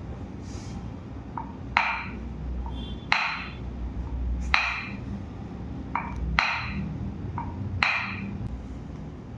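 Five sharp clicking knocks during a chiropractic adjustment, spaced about a second and a half apart, each with a softer click just before it.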